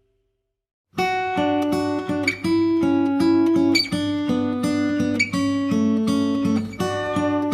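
Background music: a plucked acoustic guitar tune that starts about a second in, after a moment of silence.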